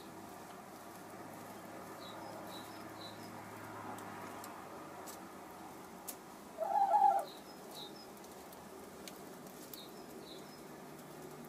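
Hen giving one short call about seven seconds in, over faint, high chirping of small birds that comes in brief groups a few times.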